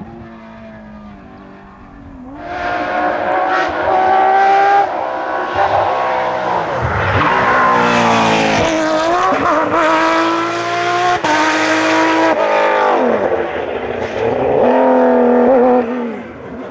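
Porsche 911 rally car's flat-six engine at full racing revs. It is faint for the first two seconds, then loud from about two and a half seconds in. The pitch climbs and drops repeatedly as it accelerates, shifts and lifts off.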